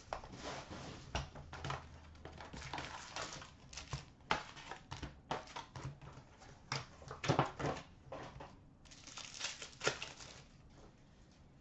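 Foil-wrapped hockey card packs rustling and crinkling as they are handled, with irregular light taps and clicks as they are set down on a glass counter.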